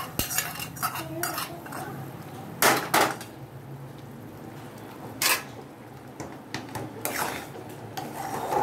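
Metal cookware clanking: a small pan of ghee-roasted cashews is knocked against the rim of an aluminium kadai of rava kesari to empty it. A few sharp clanks come, two close together about three seconds in, another past five seconds, and a cluster near the end, where a metal spoon starts stirring in the pan.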